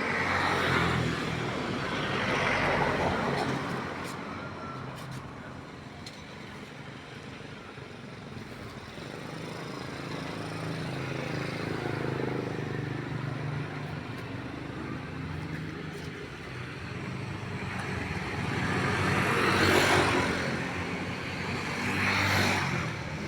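Road traffic: a steady low engine hum, with vehicles passing close by twice near the start and twice near the end, each swelling and fading away.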